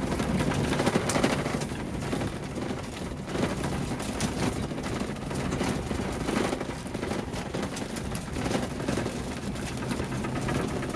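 Scania K410 double-decker coach under way, heard from inside the passenger cabin: a steady low engine drone over road and tyre noise, with occasional light clicks and rattles.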